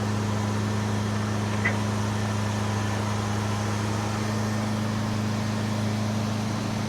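1976 Cadillac Eldorado's 500 cubic-inch V8 idling steadily just after its first start in months, with one short click about a second and a half in.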